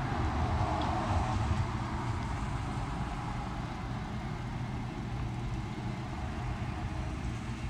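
Steady outdoor background rumble, a low hum with a faint hiss over it, slightly louder in the first second or so.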